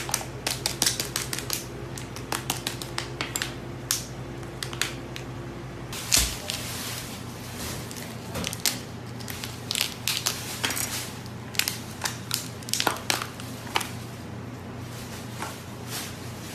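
Plastic cling film crackling and crinkling as it is cut with a knife and peeled off a wrapped roll of octopus, in irregular sharp clicks over a steady low hum.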